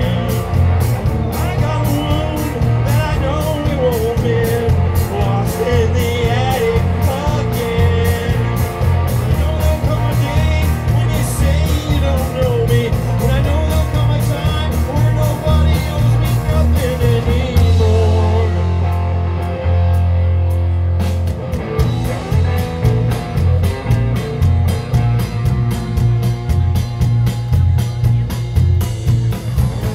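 Live rock band playing electric guitar, electric bass and drum kit. About two-thirds of the way through, the drums stop for a few seconds under a held low note, then the full band comes back in with a steady beat.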